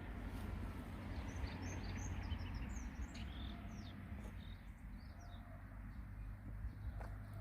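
Eurasian tree sparrows chirping: a flurry of short, high chirps over the first few seconds, then a few scattered ones, over a steady low rumble.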